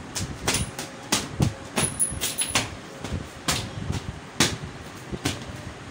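Irregular knocks, clicks and rustling as household items and clothes are picked up and moved around by hand while tidying a room. The knocks come in a quick run at first and are more spaced out later.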